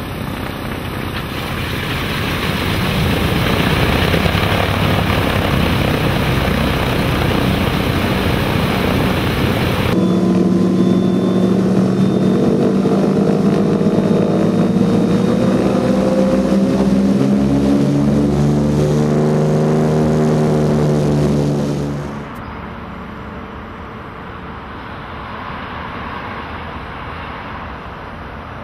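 Douglas DC-3 radial piston engines running after start-up, a loud, dense propeller-engine noise. Then, from inside the cabin, the engines drone at high power, their pitch rising slightly before holding steady. About two-thirds of the way through, the sound cuts to a quieter, more distant engine noise.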